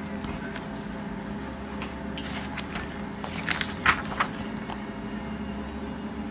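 Magazine pages being flipped and handled by hand: short papery rustles and crinkles, bunched about two to four seconds in, over a steady low hum.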